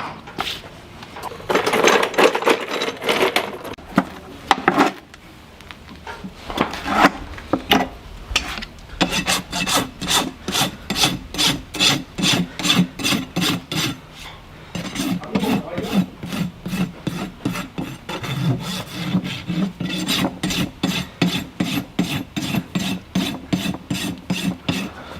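A farrier's rasp filing a horse's hoof: irregular scraping at first, then steady rhythmic strokes at about three or four a second from about nine seconds in, with a brief pause partway through.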